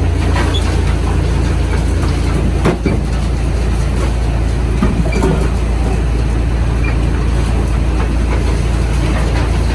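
Sawmill machinery running steadily with a loud low hum, with a few knocks, the loudest about three seconds in.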